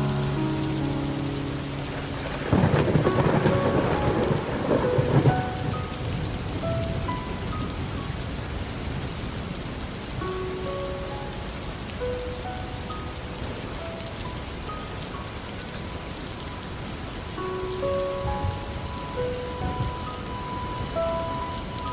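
Steady rain falling, with a loud clap and roll of thunder about two and a half seconds in that lasts about three seconds. Soft, sparse held musical notes sound over the rain.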